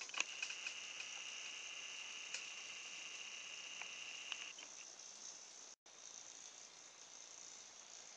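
Small electric motor from an Oral-B Pulsar vibrating toothbrush running a toy boat's aluminium propeller in bath water: a faint, steady high whine, quiet with the propeller in the water. The high tone stops about four and a half seconds in, leaving a fainter buzz, with a momentary silent gap just before six seconds.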